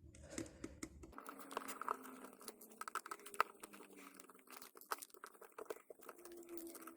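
Faint, irregular small clicks and scrapes of a precision screwdriver working tiny screws out of a Nokia 2730 mobile phone's plastic housing.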